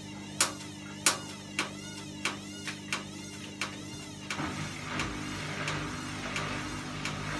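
Sharp, regular clicks, roughly one every half to two-thirds of a second, over a steady mechanical hum. About four seconds in, the hum becomes rougher and louder and the clicks turn fainter and quicker.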